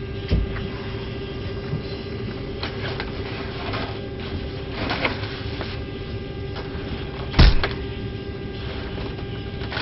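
Hand luggage being handled in an airliner cabin: a few scrapes and thuds, the loudest about seven and a half seconds in, over a steady cabin hum.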